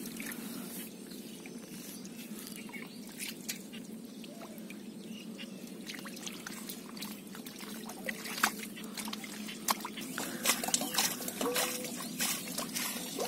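Hands groping and splashing in shallow muddy water, with water trickling and dripping. From about eight seconds in, the splashes come thicker and sharper as muddy water is scooped with a metal pot. A steady low hum runs underneath.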